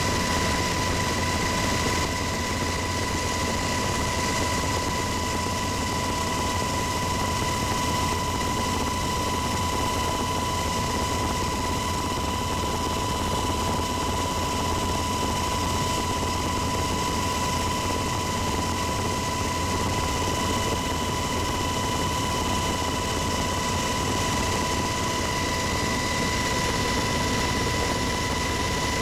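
Cabin noise inside a UH-60 Black Hawk helicopter in cruise flight: a steady rush of rotor and engine noise with a constant high whine, unchanging throughout.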